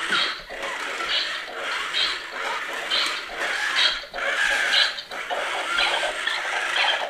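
Remote-controlled white-and-blue toy robot making a rhythmic run of short, tinny sounds, about two a second.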